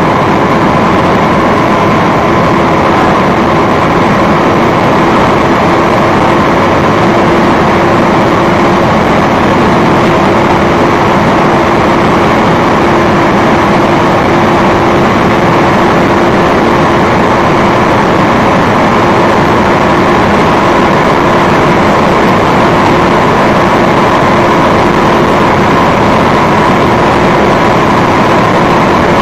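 Audi R8 V10 Plus's 5.2-litre V10 running flat-out at high revs in seventh gear near its top speed, heard from inside the cabin. The loud engine note holds an almost steady pitch throughout.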